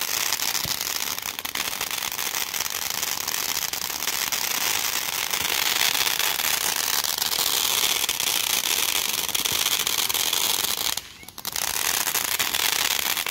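Ground fountain firework spraying sparks, a steady hiss thick with fine crackling, dropping away briefly about eleven seconds in.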